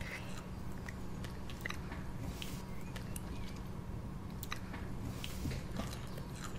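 Quiet room tone with a steady low hum and scattered soft clicks and taps throughout.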